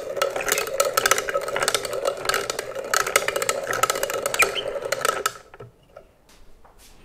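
Hand-cranked metal food mill being turned, its blade scraping and rattling against the perforated plate as berry pulp is pressed through to hold back the seeds. The cranking stops about five seconds in.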